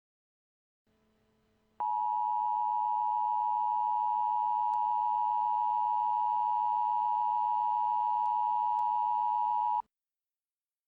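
Emergency Alert System attention signal: a steady two-tone alarm that comes in about two seconds in, after a faint hiss, holds for about eight seconds and cuts off abruptly. It announces that an emergency alert message follows.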